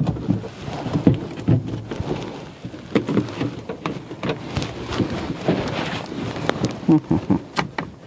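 Handling noise: irregular short knocks, clicks and rustling as gloved hands work at the plastic inner door module of a minivan's sliding door.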